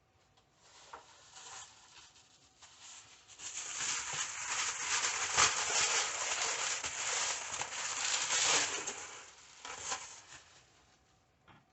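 Rustling and crinkling of packaging as a replacement laptop screen is taken out and handled. It starts with a few light clicks and builds to a steady rustle for several seconds, then fades near the end.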